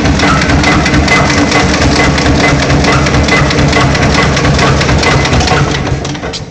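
Flywheel-driven expanded metal mesh machine running, its blades slitting and stretching sheet metal with loud, dense rapid knocking; the sound fades near the end.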